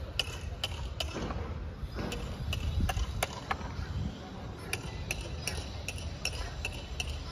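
Hammer tapping on metal in an even rhythm, about two to three strikes a second with a brief pause midway, as an ox's hooves are worked on and fitted with iron shoes (lala).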